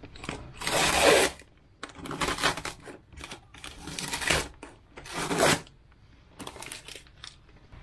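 Peel ply cloth being torn off a cured fiberglass-and-epoxy panel in several ripping pulls, the loudest about a second in.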